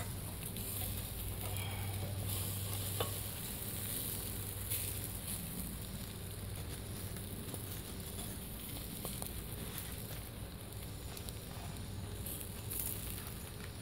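Cheese-topped burger patties sizzling on a grill grate, with a spatula scraping under them and lifting them off; a few faint clicks.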